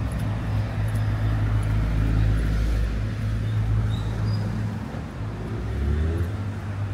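Road traffic beside the promenade: a motor vehicle's engine running close by with a deep, steady hum, its pitch rising briefly near the end.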